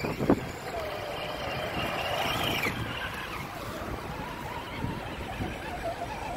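Electric motor and gearbox whine of an Axial SCX10 RC crawler, rising and falling in pitch with the throttle as it crawls through mud. A sharp knock sounds just after the start.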